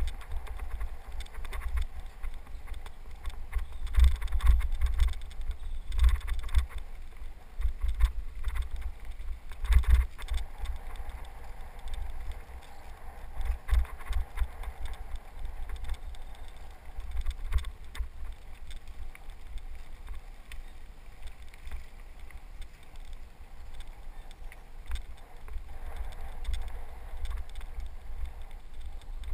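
Wind rumbling and buffeting on a helmet-camera microphone while riding a bike on a dirt trail, rising and falling in gusts, with scattered knocks and rattles from the bike and tyres going over bumps.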